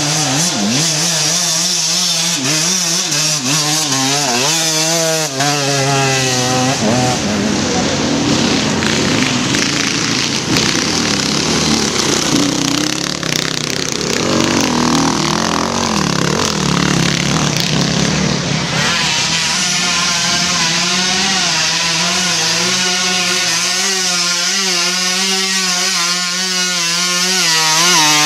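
Enduro dirt bike engines revving hard on a forest climb, their pitch rising and falling with the throttle. The bikes come and go, and one is loudest as it passes close near the end.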